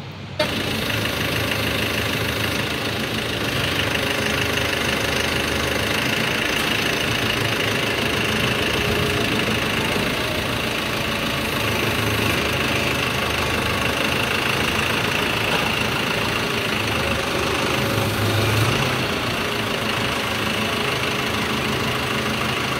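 Forklift engine running steadily, with a brief rise in level late on, after a short click at the start.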